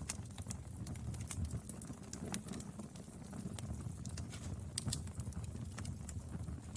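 Wood fire burning: a steady low rumble with irregular sharp crackles and pops from the burning wood.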